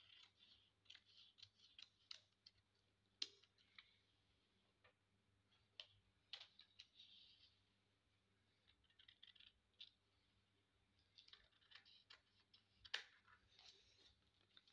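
Scissors cutting through paper: irregular runs of quiet snips and short rasps as the blades close, with two sharper clicks, one about three seconds in and one near the end.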